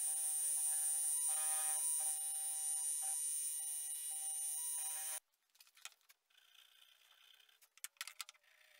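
Milling machine end mill cutting a slot through a metal sword guard: a steady high-pitched whine with pulsing tones. It cuts off abruptly about five seconds in, leaving only faint scrapes and taps of hand filing on the guard.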